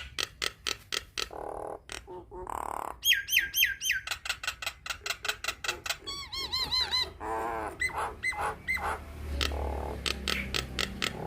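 Nias hill myna singing: rapid sharp clicks and harsh squawks mixed with clear whistles, including four quick falling whistles about three seconds in and a fast run of arched ringing notes around six to seven seconds in.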